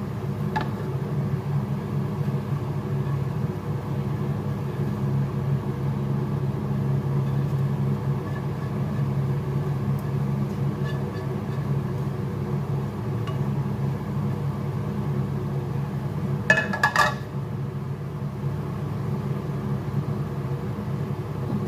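A steady low mechanical hum, with a brief clatter of a spatula scraping and clinking against a frying pan and glass baking dish about sixteen seconds in.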